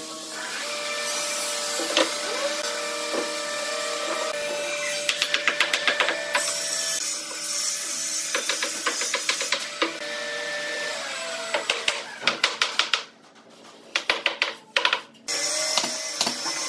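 Quick runs of sharp knocks as a pine frame is assembled: a wooden mallet tapping joints together and a pneumatic nail gun driving fasteners, over a steady workshop hum.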